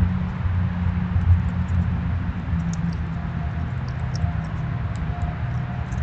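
Steady low rumble, with faint short high ticks scattered through it and a faint thin steady tone coming in about halfway.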